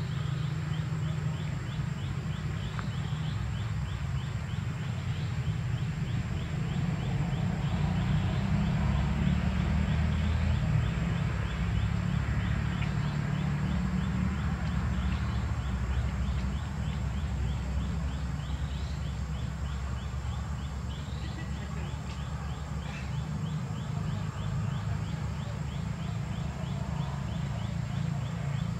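Outdoor ambience: a steady low rumble with a faint, rapid high ticking call repeating several times a second.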